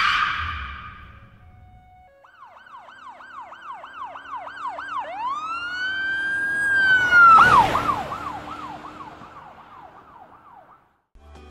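Electronic siren sound effect, starting with a short falling swoosh. It runs as a fast yelp of repeated falling sweeps, then a long rising wail held for about two seconds, then the fast yelp again, which fades out near the end.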